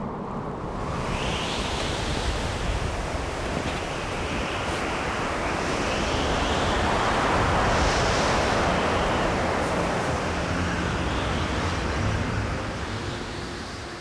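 Strong blizzard wind blowing, a steady rushing that swells to its loudest about halfway through and eases near the end.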